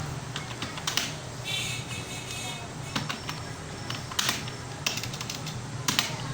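Computer keyboard keys clicking in slow, irregular typing, a few louder keystrokes about a second apart, over a steady low hum.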